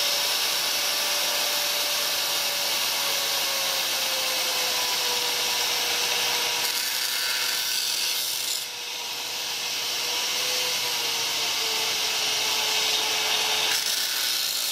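Variable-speed angle grinder with a tile-cutting blade running with no load, its motor whine sliding slowly lower as the speed is dialled down to the slower setting wanted for cutting glass mosaic. There is a brief dip in loudness a little past halfway.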